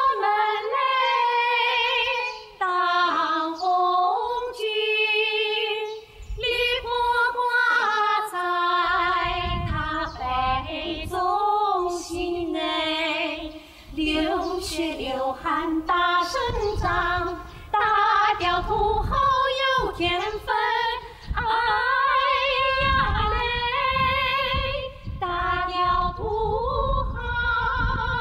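Women singing a Hakka mountain song (shan'ge), a single melody line in long, wavering held notes with short breaks between phrases.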